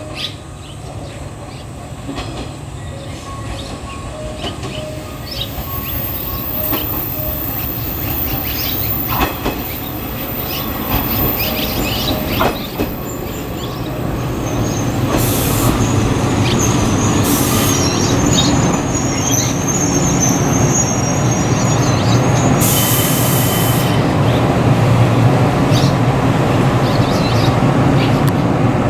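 Electric local train arriving at a station platform, growing steadily louder as it approaches, with high wheel squeal and clicks as its wheels cross the rail joints.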